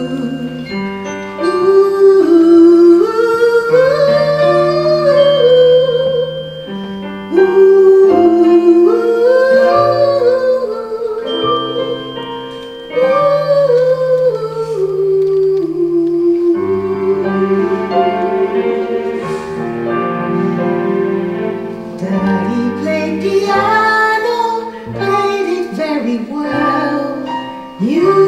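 A woman singing a slow solo melody with vibrato over held keyboard chords, phrase after phrase, in a live stage musical.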